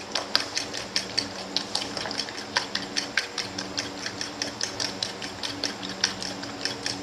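A plastic fork whisking beaten eggs in a glass bowl, clicking against the glass in quick, regular strokes about three or four a second, over a faint steady low hum.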